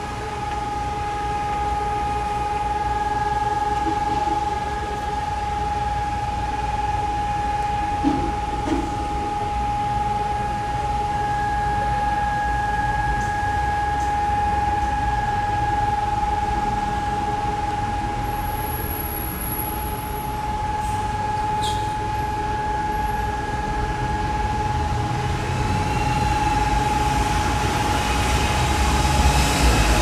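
Civil-defence warning siren sounding one steady, unbroken tone during a siren test; in Germany a steady tone like this is the all-clear signal. Street traffic rumbles underneath, and a bus pulls in near the end.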